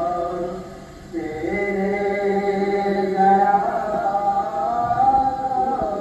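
Naat recited by a solo male voice, unaccompanied: long held, ornamented sung notes, with a short breath pause about a second in.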